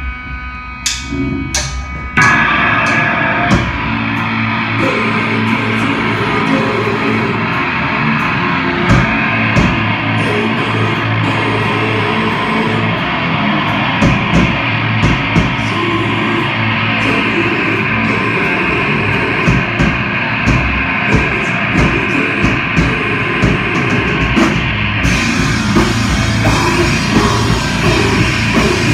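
Heavy rock band playing live, with distorted electric guitars, bass and a drum kit. It opens with a few separate drum hits over ringing guitar, then the full band comes in heavy about two seconds in.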